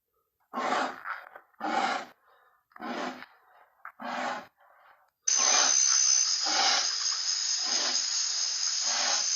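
King Kong creature sound effect from the 2005 film: heavy breathing, one breath about every 1.2 seconds. About halfway through, a loud steady hiss comes in over the breaths.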